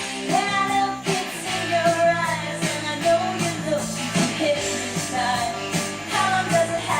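Rock song with singing over guitar and a steady beat, played from a vinyl record on a Technics SL-B3 belt-drive turntable.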